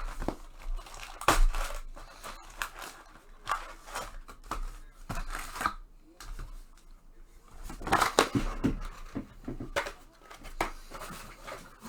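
Basketball trading card packs being torn open: irregular tearing and crinkling of wrappers, with short clicks and rustles of cards being handled.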